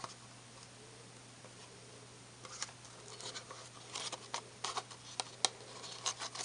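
Quiet at first; then, from about two and a half seconds in, soft irregular rustles and light ticks of a cardstock box being handled as linen thread is tied into a knot.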